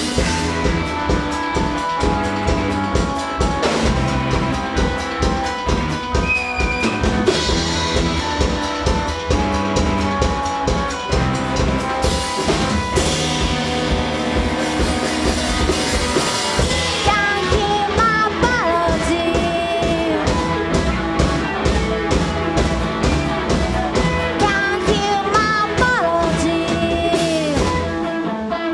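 Live rock band playing an instrumental break: drum kit, bass and electric guitar, with a gliding lead line in the second half.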